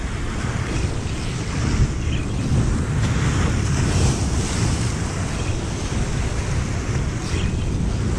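Ocean surf breaking and washing over jetty rocks, mixed with heavy wind buffeting on the microphone.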